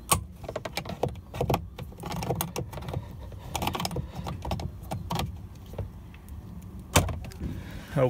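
Plastic clicking and scraping as a pry tool works the master power-window switch panel of a 2007 Mercury Grand Marquis loose from the door armrest's retaining clips. A sharp snap about seven seconds in is a clip letting go.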